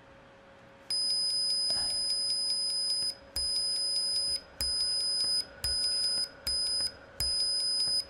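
Arduino-driven passive buzzer sounding a steady 5 kHz high-pitched beep, starting about a second in and cut into seven bursts as the push button is pressed and released. Faint ticks run through each burst where the program restarts the tone every fifth of a second.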